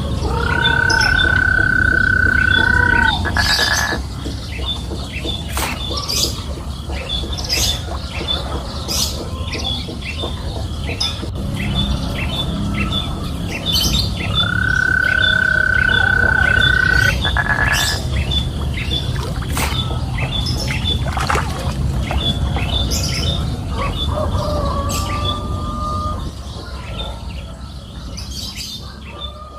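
Kettle whistling in two long, steady high tones of about three seconds each, one near the start and one about halfway through. Birds chirp over and over in the background, over a low rumble.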